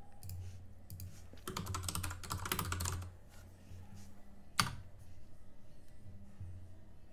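Typing on a computer keyboard: a quick run of keystrokes between about one and a half and three seconds in, then a single louder click about a second and a half later as the search is entered.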